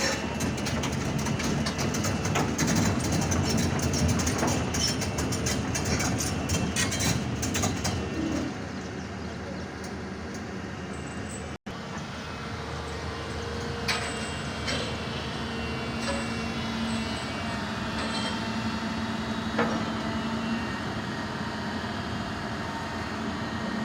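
Excavator running under load with metallic clanking and rattling from its tracks and steelwork, busiest and loudest in the first eight seconds or so, then a steadier run with occasional clanks.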